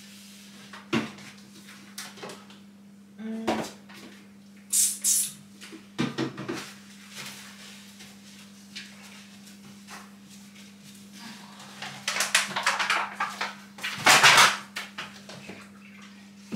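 Groceries and containers being handled in an open fridge: scattered knocks and clicks as items are moved on the shelves, a short hiss about five seconds in, and plastic bags crinkling loudly near the end. A steady low hum runs underneath.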